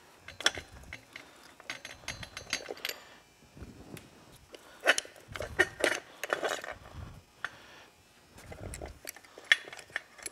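Metal transmission gears and shafts of a 2008 Yamaha YZF-R6 engine clinking and clicking against the crankcase as they are handled and lifted out. Light, irregular clinks, with a few sharper ones about five to six seconds in and again near the end.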